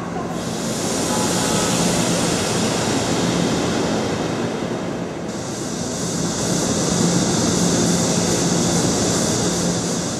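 High-speed train running, a steady rushing noise with a low hum underneath. The hiss gets louder about five seconds in.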